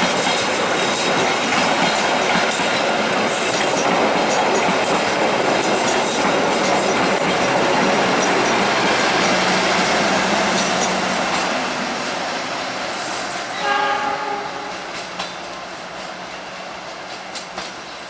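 Argo Bromo Anggrek express passenger train running through at speed: a loud, steady rush of wheels and carriages on the rails that fades as the last car passes and draws away. A short horn sounds about 14 seconds in, and wheels click over the points near the end.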